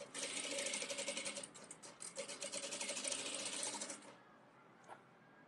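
Industrial sewing machine stitching a seam: a fast, even run of stitches for about four seconds, easing off briefly near the middle, then a single click about a second after it stops.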